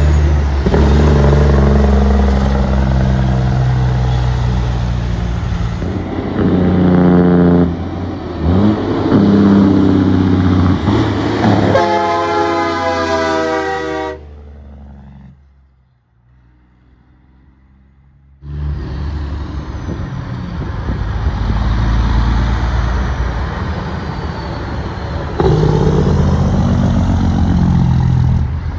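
Diesel semi-truck engines pulling away under hard acceleration, the loud exhaust note climbing in pitch through each gear and falling back at the shifts. About halfway it drops almost to nothing for a few seconds, then another truck's engine and exhaust take over.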